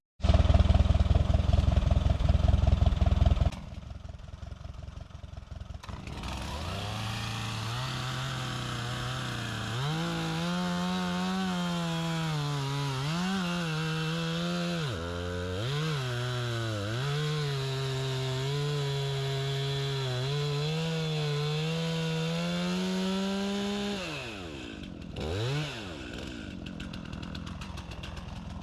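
Small gas engine of a sawmill or saw revving up and running hard under cutting load, its pitch climbing, dipping and recovering, then dropping away near the end with one short rev. A loud low rumble fills the first few seconds.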